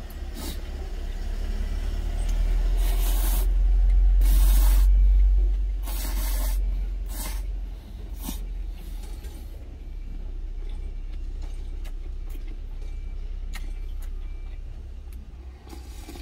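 A run of noisy noodle slurps from about three to eight seconds in. Beneath them is a steady low vehicle engine rumble that swells and fades in the first half.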